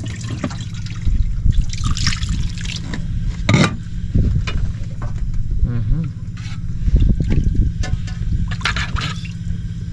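Broth being poured into a cooking pot, with liquid splashing and trickling, over a steady low hum.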